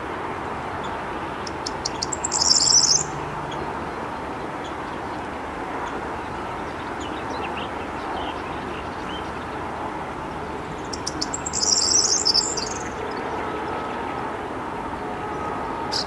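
Corn bunting singing: two songs about nine seconds apart, each a few ticking notes that speed up into a short, jangling high trill. A steady background hum runs underneath.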